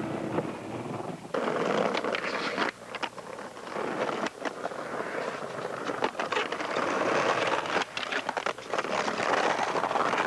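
Skateboard wheels rolling over brick and concrete, broken by several sharp clacks of the board striking the ground, with a grind along a concrete ledge about midway.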